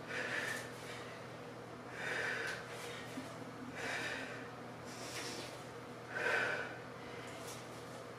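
A woman breathing out hard in short bursts, about one every two seconds, in time with two-arm kettlebell swings to overhead.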